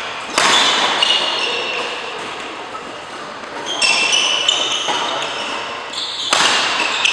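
Badminton rackets striking a shuttlecock during a rally: three loud smacks a few seconds apart with fainter hits between, each ringing on in the echo of a large hall.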